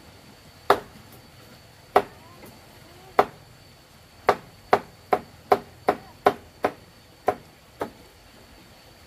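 A blade chopping with sharp, separate strikes: three slow ones about a second apart, then a quicker run of about two to three a second, ending with a weaker last strike.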